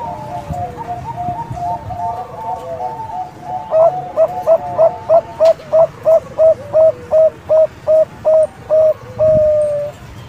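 Zebra dove (Bangkok perkutut) singing. Soft overlapping coos at first, then a fast run of loud staccato coos, about three a second, ending in one longer held note near the end.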